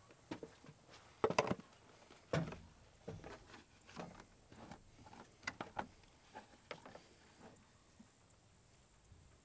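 Hard plastic knocking and clicking: a plastic funnel set into an engine's oil filler neck, then a plastic jug of engine oil handled and its cap worked open. The loudest knocks come in the first two and a half seconds, with lighter clicks after that.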